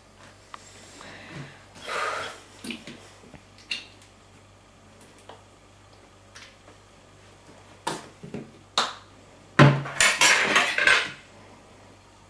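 Knife and fork clattering and clinking against a plate, in scattered knocks and then a dense run of clatter about ten seconds in.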